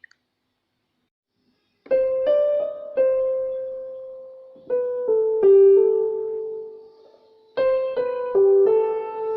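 Piano music: after about two seconds of near silence, a slow melody of struck notes that ring and fade, in short phrases.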